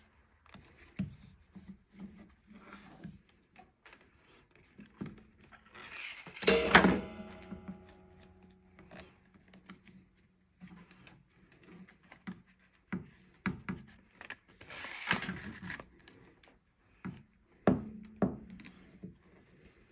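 Reed weaver being worked and packed through the spokes of a small woven basket: scattered rubbing, scraping and light clicks of reed against reed. A sharper knock with a brief ringing tone comes about seven seconds in, and a longer rustle of reed sliding about fifteen seconds in.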